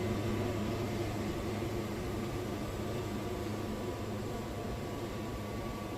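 Wood-Mizer band sawmill's engine running at a steady, unchanging hum.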